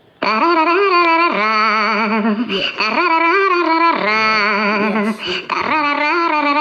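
A novelty phone ringtone playing: a voice singing wordless, strongly warbling held notes in a few phrases, with short breaks between them.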